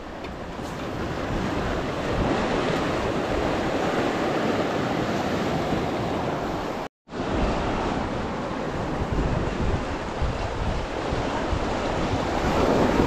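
Ocean surf washing and breaking over shoreline rocks, with wind buffeting the microphone. The sound cuts out completely for a moment about seven seconds in.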